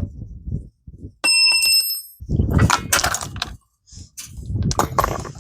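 A metal tool or bike part clangs and rings clearly for under a second, followed by scraping and handling noise and a few sharp knocks of hand work on the mini bike.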